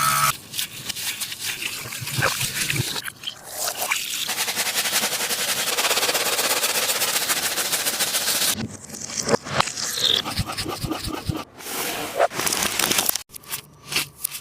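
A taba squishy toy being squeezed and handled, giving dense crackling, scraping sounds for about eight seconds, then sparser crackles with short pauses.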